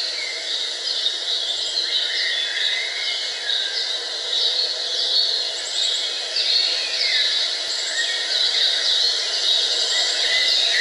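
Several birds chirping in short, repeated calls, many of them falling in pitch, over a steady outdoor background hiss.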